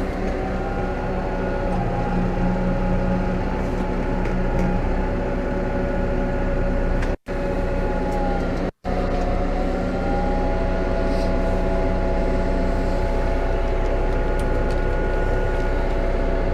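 New Holland T5.120 tractor engine running steadily under load while pulling a three-furrow plough; its note dips briefly and recovers just past the middle. The sound cuts out twice for an instant near the middle.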